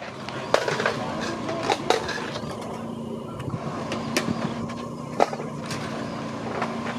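Swap meet background: a steady noise bed with a faint hum and a handful of sharp knocks and clacks. The loudest clacks come about half a second in, around two seconds in and about five seconds in.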